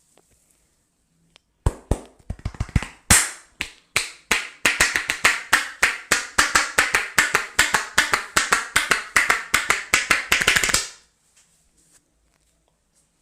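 Rapid percussive strokes of a head massage: sharp slapping taps, irregular at first, then a steady run of about four to five a second that stops suddenly near the end.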